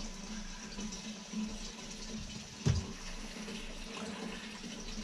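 E10 petrol pouring from a plastic fuel can through a flexible spout into a plastic container, a steady stream of liquid. One sharp knock about two and a half seconds in.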